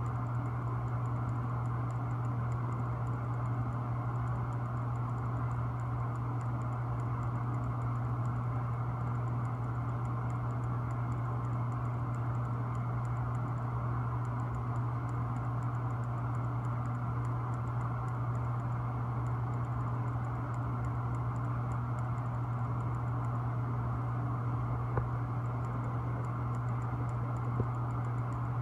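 A steady low mechanical drone that does not change, with faint light ticking above it. The uploader notes that it is not a chainsaw.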